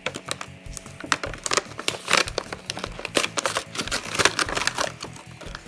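Clear plastic blister packaging crinkling and crackling in quick, irregular crackles as hands work it open and pull it from its card backing.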